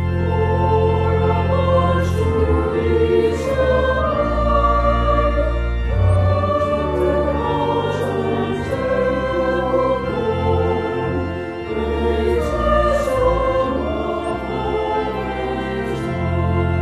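Choir singing a church setting with organ accompaniment, the organ holding long, steady bass notes beneath the voices.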